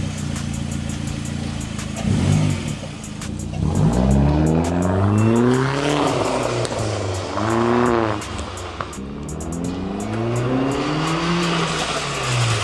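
Turbocharged Hyundai Genesis Coupe engine, fitted with a blow-off valve and an aftermarket intake filter, idling and then pulling away hard. The revs climb in several rising pulls, dropping back between them as it shifts through the gears.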